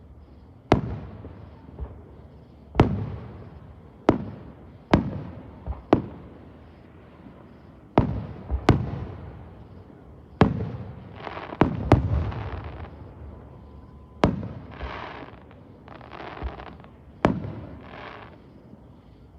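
Fireworks going off: about fifteen sharp bangs at irregular intervals, each trailing off in a long echo. In the second half, bursts of hissing crackle sound between the bangs.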